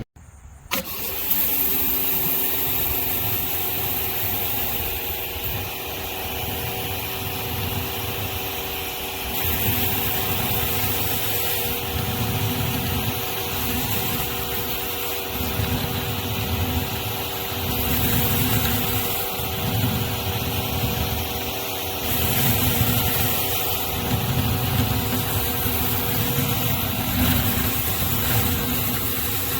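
Pressure washer running steadily while high-pressure water sprays from a 16-inch surface cleaner; the spray hiss swells and eases every few seconds. The sound cuts out briefly right at the start.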